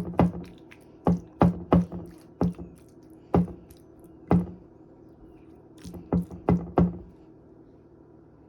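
Irregular sharp knocks of a metal spoon against a metal cooking pot, each with a short ring, stopping about seven seconds in.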